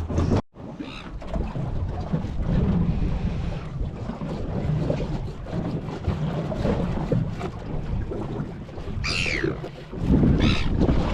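Wind buffeting the microphone over sea noise on a small boat in rough seas, a steady low rush. About nine seconds in comes a short high cry falling in pitch, then a couple of shorter ones.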